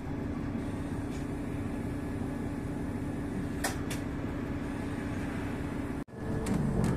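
Steady running noise of a bus heard from inside the cabin: a low engine hum and rumble, with a couple of faint clicks.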